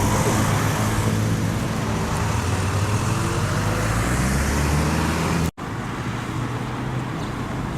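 Road traffic at a city intersection, with a vehicle engine running steadily close by. About two-thirds of the way through the sound breaks off abruptly, and quieter traffic noise follows.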